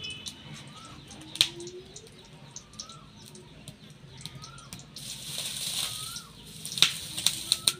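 Oil crackling and spitting around taro slices deep-frying in a black iron karahi, with a louder hiss about five seconds in. A bird repeats a short rising-falling call about every two seconds in the background.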